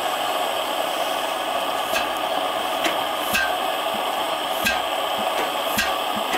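1908 F.O. Beijer stationary engine starting up: a steady hiss, with single firing thumps from about three seconds in, roughly one a second.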